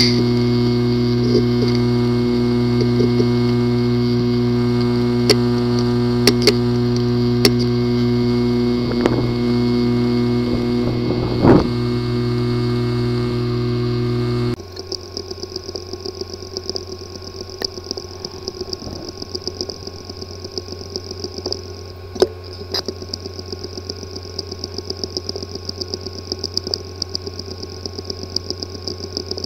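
Hard drives with a physically damaged disk assembly running: first a steady hum with a few scattered clicks, then, about halfway through, it cuts suddenly to a quieter drive making a rapid run of ticks. The clicking is the symptom the narrator attributes to a damaged disk assembly.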